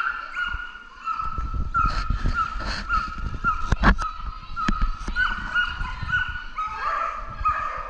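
A dog barking over and over in short, high-pitched yips, about two a second, while running an agility course. From about a second in there is a low rumbling, and a few sharp knocks come near the middle.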